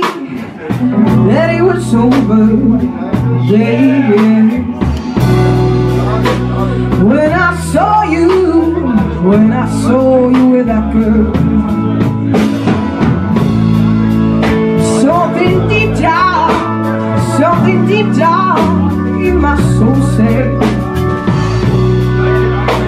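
Live blues band playing a slow ballad: electric guitar, keyboard, bass and drums, with a woman's voice singing over them.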